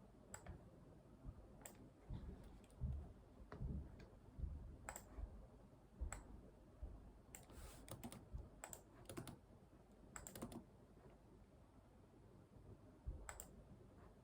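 Computer keyboard typing and mouse clicks: irregular soft key strokes and sharp clicks, with a quick run of clicks about halfway through.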